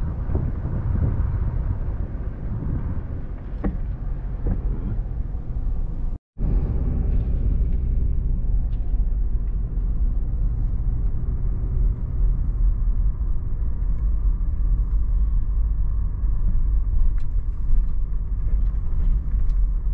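Steady low rumble of a car running, heard from inside the cabin. It drops out for a moment about six seconds in.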